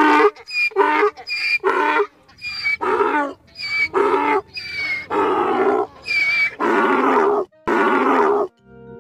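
Donkey braying: a long run of hee-haws, the early calls short and the later ones drawn out longer, ending about eight and a half seconds in.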